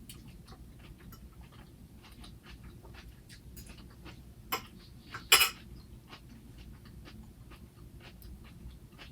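Eating a raw salad up close: a scatter of small, crisp clicks from chewing and the fork, with a louder sharp crack about five seconds in.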